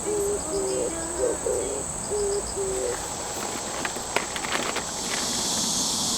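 An owl-like bird hooting in about six short, even notes over the first three seconds, over a steady high insect trill; a few light clicks follow about four seconds in.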